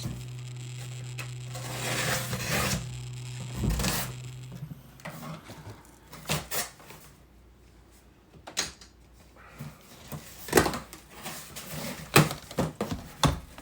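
Clicks, taps and knocks of hard plastic parts being handled, with a rustle and a heavier knock early on. A steady low hum stops about five seconds in.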